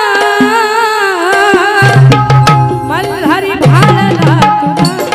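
Marathi folk song with dholki drumming under a held, wavering melody line; from about two seconds in the dholki's deep strokes come in strongly and the rhythm picks up, with quick gliding notes around the middle.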